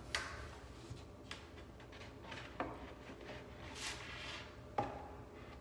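Click-lock floor planks being handled and fitted together on foam underlayment: four sharp knocks and clicks as the plank edges meet, the loudest near the end, with a brief sliding rub of a plank shortly before it.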